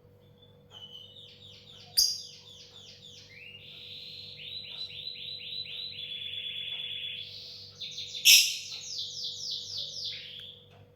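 Lovebird chattering in a long, rapid run of repeated squeaky chirps that quicken in the middle, with two sharp, louder notes, one about two seconds in and one past the middle.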